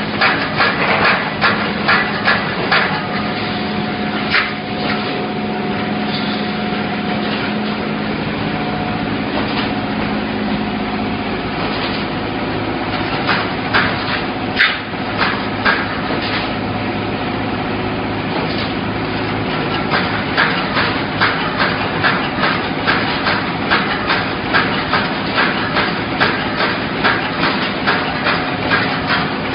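Double-pull automatic wire mesh welding machine running: a regular mechanical clanking of its welding strokes, about two a second, over a steady electrical hum. The clanking thins out for several seconds early on and comes back strongly near the end.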